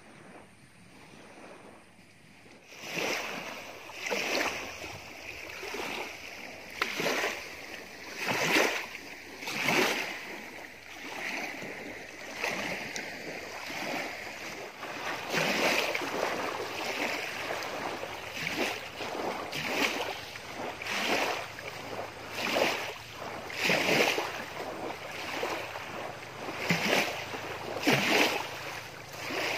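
Small lake waves washing and splashing onto a gravelly shore, one swell every second or two, starting about three seconds in.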